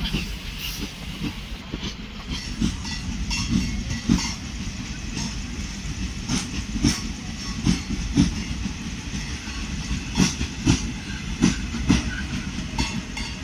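Indian Railways passenger coaches rolling past at speed over a steady rumble, their wheels clattering over the rail joints in repeated sharp knocks, often in pairs.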